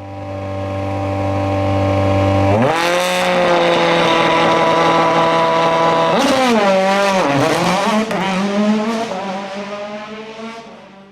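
A World Rally Car's turbo engine at full throttle, growing louder as it approaches, jumping up in pitch about two and a half seconds in, then dropping and wavering through several gear changes with sharp cracks and bangs from the anti-lag system, before fading away.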